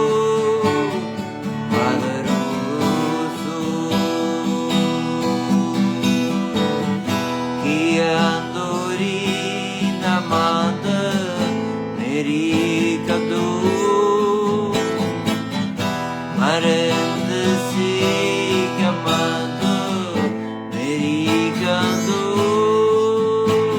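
Acoustic guitar music: a steady accompaniment with long, gliding melody notes that swell and fall every few seconds.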